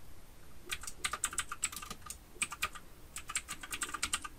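Typing on a computer keyboard: quick runs of key taps in short bursts, starting under a second in.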